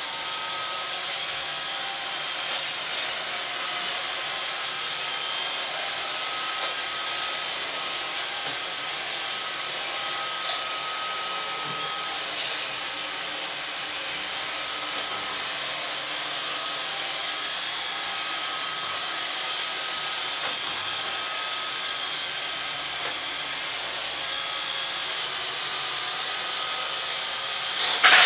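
Roomba robot vacuum running steadily, with a faint high whine over its motor and brush noise. A single loud knock comes near the end.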